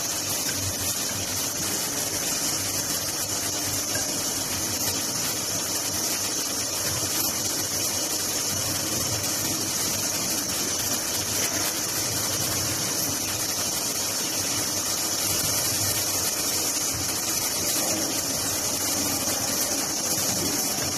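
LIMAC R2109K CNC duct-panel cutting machine running: a steady mechanical noise with a strong high hiss that does not let up.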